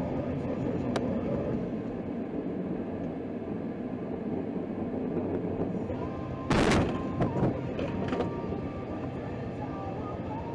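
Rear-end collision: a sedan hits the back of a Jeep with one loud crunching bang about six and a half seconds in, followed by a few smaller knocks as bumper parts break loose. Steady road noise from the moving vehicle runs under it.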